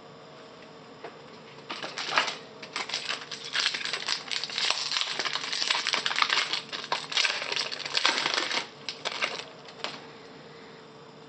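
Wrapper of a Topps Chrome trading-card pack crinkling and tearing as it is ripped open by hand: a dense, crackly rustle with sharp clicks that starts about two seconds in and stops about ten seconds in.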